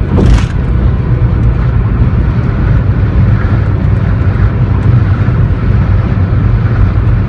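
Steady road and engine rumble inside a car driving at highway speed, deep and even, with a brief thump about a third of a second in.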